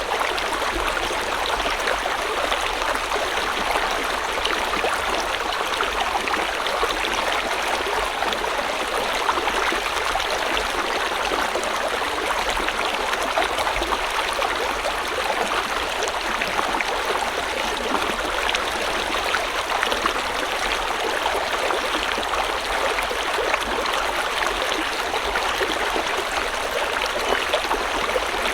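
A river or stream flowing steadily, an even rushing and babbling of water with no breaks.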